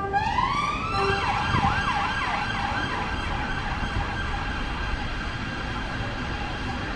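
An emergency vehicle siren starts with a rising wail over about a second, gives several quick sweeping yelps, then holds a steady high tone. Low street noise continues underneath.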